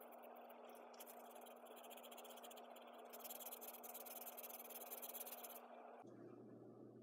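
Faint scratching of a Sharpie fine-point marker coloring in on sketchbook paper, in quick strokes that are busiest around the middle, over a low steady hum.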